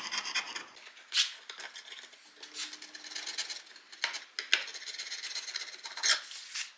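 Old dried glue being scraped off a wooden joint in short, irregular scraping strokes, cleaning the surface so a new piece can be glued on.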